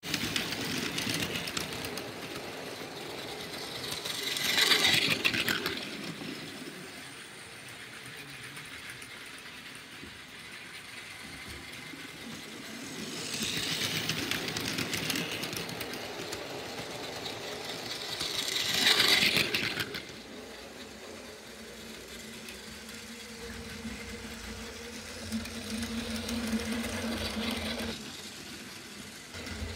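Battery-powered Plarail toy trains running on plastic track, their small motors whirring and the cars clattering over the rail joints. The sound swells loudly as a train passes close by about five seconds in and again near nineteen seconds.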